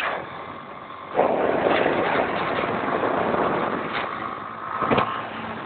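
Motorcycle riding along a road at speed: a steady rush of engine and road noise that jumps louder about a second in, with a couple of sharp knocks near the end.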